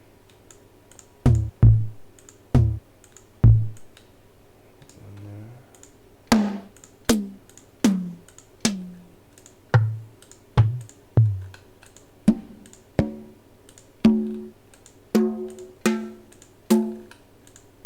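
Sampled electronic drum pattern playing: low kick drum hits, faint hi-hat ticks and deep toms whose pitch drops quickly after each strike.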